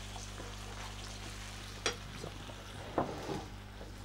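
Root vegetables and tomato paste sizzling quietly in a frying pan with a little liquid, roasting as a spatula stirs them through. Two short, sharper scrapes of the spatula on the pan come about two and three seconds in.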